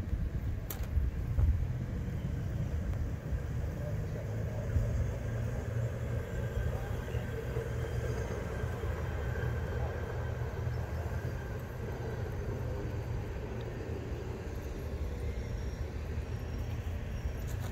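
Hi-rail pickup truck running along the railroad track, a steady low rumble of engine and wheels.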